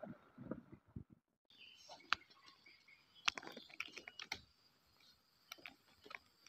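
Forest sounds: a steady high insect drone with scattered sharp clicks and ticks. There are a few low thumps in the first second, and the sound drops out briefly before the drone begins.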